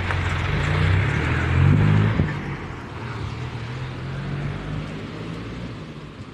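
A motor vehicle's engine, growing louder to a peak about two seconds in, with one sharp knock near the peak, then fading away.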